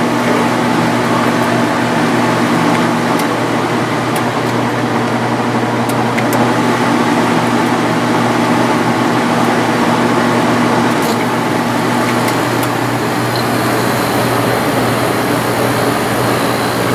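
1995 Sharp Comfort Touch 10,500 BTU window air conditioner running after start-up, with its fan blowing air and a steady hum. Its fan motor has new bearings, and it has just been cleaned. A couple of the hum tones drop out partway through, and there are a few faint ticks.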